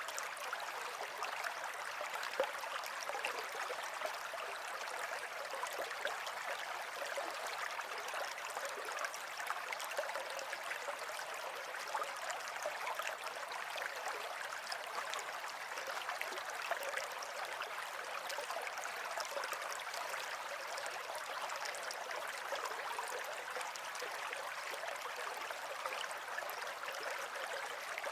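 Running water flowing steadily without a break, a light, even rush with little deep rumble.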